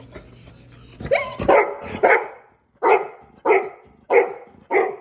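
Dog barking in a fast run of about seven barks, starting about a second in. These are the excited, impatient barks of a dog made to sit and wait before being let out to play.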